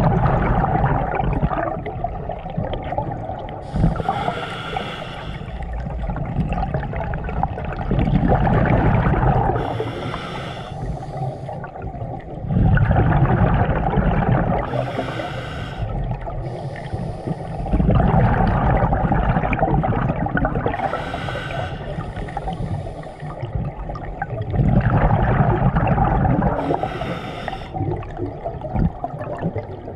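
Scuba diver breathing through a regulator underwater: a hissing inhale through the demand valve, then a rumble of exhaled bubbles. About five breaths, one every five to six seconds.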